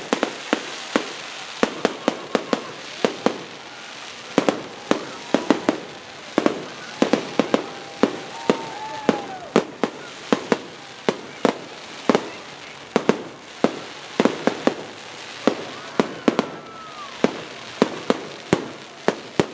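Aerial fireworks display: a dense, irregular stream of sharp pops and bangs, several a second, from crackling shells bursting overhead.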